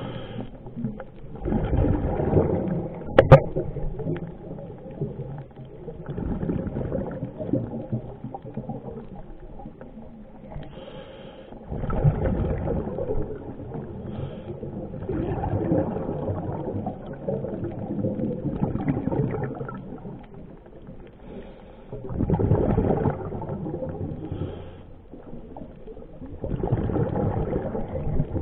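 Scuba regulator breathing heard underwater: a gurgling surge of exhaled bubbles swells and fades every four to five seconds. One sharp click comes about three seconds in.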